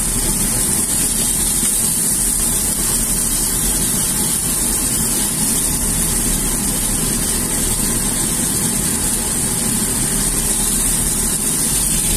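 Chicken wings sizzling in hot oil in a frying pan, a steady hiss over a low hum.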